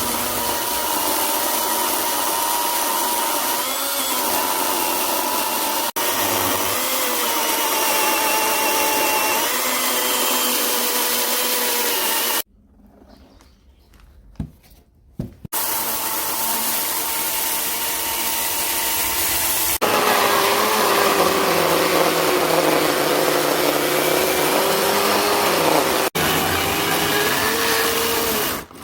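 Electric power grinder running against steel rail, a steady grinding hiss with a whine that sags in pitch as the tool is pressed into the work. It stops for a few seconds midway, with a couple of knocks, then starts again.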